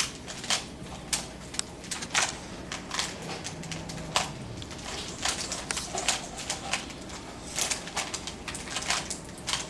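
Rubik's cubes being turned fast during a speed solve: the plastic layers click and clack in quick, irregular runs of several snaps a second.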